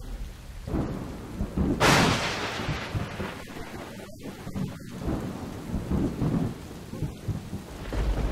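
Thunderstorm: a sharp thunderclap crashes about two seconds in and rolls off into a low rumble over steady rain, with another low roll of thunder near the end.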